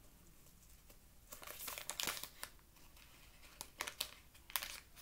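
Crinkling and crackling of a bag of cornstarch being pulled and twisted at its top in an effort to get it open. After a quiet first second it comes in two spells of crackly handling.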